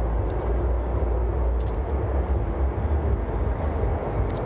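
Steady low outdoor rumble with no clear single source, heaviest in the deep bass, with a couple of faint ticks.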